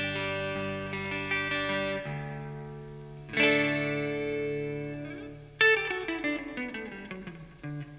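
PRS S2 Studio electric guitar ringing out sustained chords, with a fresh strum about three and a half seconds in and another near six seconds whose pitch slides downward as it fades.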